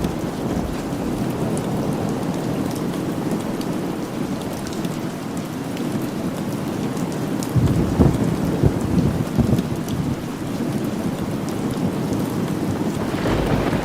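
Steady heavy rain with rolling thunder, the rumble swelling in low pulses about halfway through.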